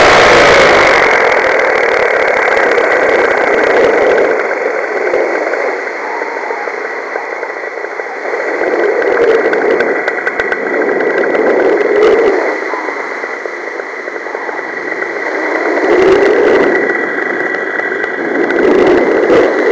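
A paramotor engine drops to a lower, steady running about a second in, as if throttled back. It is heard under wind noise on the harness-mounted camera that swells and fades every few seconds.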